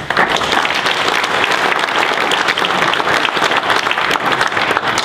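Audience applauding: dense, steady clapping that stops abruptly at the end.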